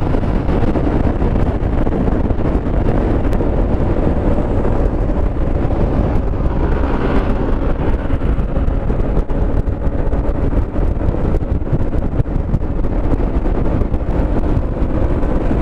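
Wind rushing over the camera microphone on a Yamaha XMAX 300 maxi-scooter at highway speed, over the steady drone of its single-cylinder engine and tyre noise. A brief swell of hiss comes about seven seconds in.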